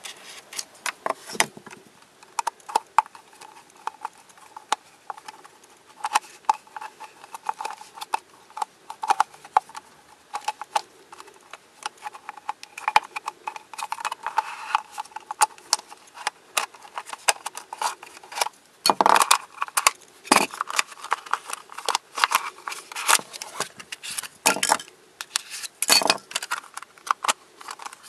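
Hard plastic pieces of a Twist Ball spherical puzzle clicking and clattering as they are pried apart and handled. Irregular small clicks throughout, with a few louder knocks in the second half.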